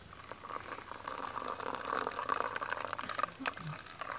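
Hot water poured in a steady stream from a metal camping pot into a Kupilka cup, filling it.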